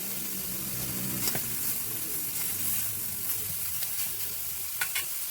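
Dried fish sizzling steadily in hot oil in a pan, with a few short clicks of a utensil stirring it.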